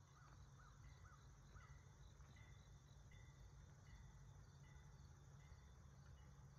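Near silence: faint outdoor ambience with a high chirp repeating evenly about every three-quarters of a second, a few short rising-and-falling chirps in the first second and a half, over a low hum.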